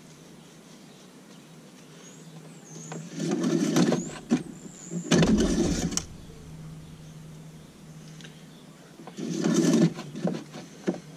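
Engine-oil dipstick being wiped with a paper towel and slid back down its metal tube: three short bursts of scraping and rustling, the loudest about five seconds in.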